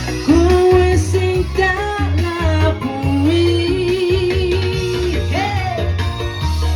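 A Javanese love song playing: a singer holds long, wavering notes without words over a steady bass beat and guitar.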